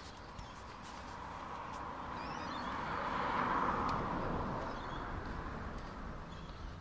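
A passing vehicle's road noise swells to a peak about halfway through and then fades away. There are faint bird chirps partway through.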